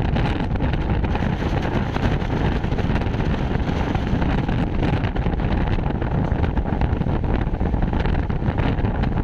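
Passenger train running at speed: steady rumble of wheels on the rails mixed with wind buffeting the microphone.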